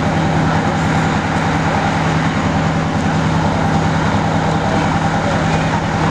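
E-ONE Hurricane aerial ladder fire truck's diesel engine idling: a steady, loud low drone with a fast even throb.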